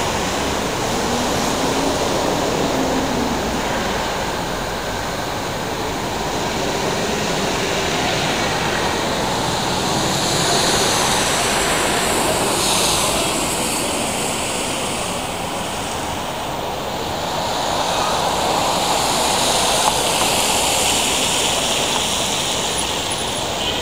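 City street traffic on wet roads: a steady rushing noise that slowly swells and fades as vehicles pass.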